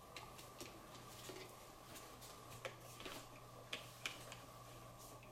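Faint, irregular plastic clicks and taps as a small toy firefighter figure is handled and fitted into a toy fire truck's ladder basket, over a faint steady hum.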